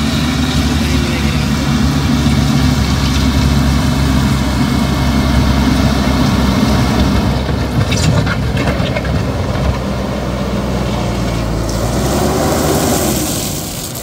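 JCB 3DX backhoe loader's diesel engine running hard as the front bucket pushes and spreads gravel, with a short clatter about eight seconds in and the engine revving up and back down near the end.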